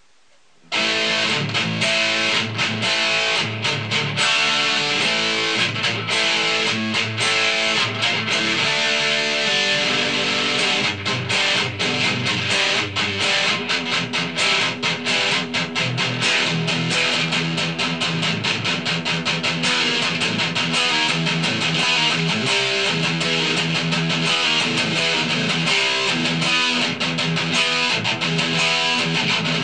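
Ibanez S470 electric guitar with a DiMarzio Gravity Storm bridge humbucker, played through heavy 80s-style amp distortion: continuous riffing and chords, starting about a second in.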